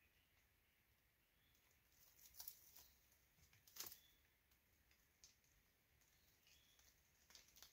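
Near silence, with a few faint short clicks and rustles, the clearest about two and a half seconds and about four seconds in.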